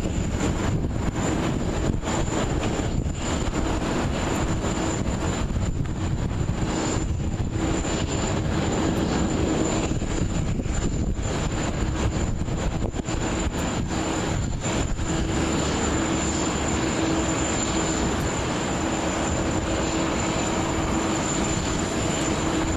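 Jet airliner's engines running, a steady wash of noise with a thin high whine and a low hum held at an even level.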